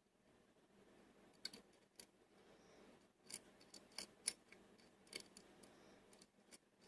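Faint, irregular small metallic clicks of a lock pick working the pins of a GeGe pin-tumbler lock under tension, with a few sharper clicks around the middle.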